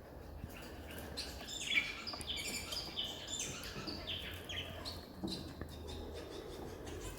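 Budgerigars chirping: a quick run of short, falling calls, bunched in the middle of the stretch and thinning out towards the end.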